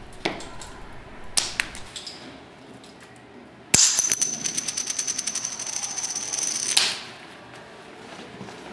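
Shoes stepping on a hard terrazzo floor, then a bundle of wristwatches clattering onto the floor about four seconds in. This is followed by about three seconds of very rapid metallic clicking with a high, steady ring, which cuts off suddenly.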